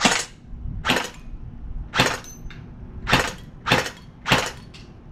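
ARES PPSh-41 electric-blowback airsoft gun firing single shots on semi-auto: six sharp cracks, the first three about a second apart and the later three closer together.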